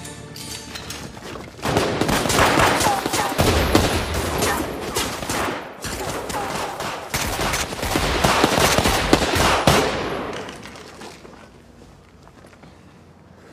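Sustained rapid gunfire, with bullets striking a concrete wall. The firing starts about two seconds in, slackens briefly near the middle, and dies away a few seconds before the end.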